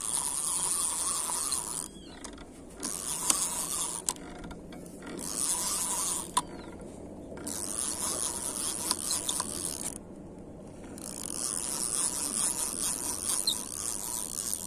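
Spinning fishing reel being cranked by hand, its gears and rotor whirring as line is wound in, in about five spells of a few seconds with short pauses between.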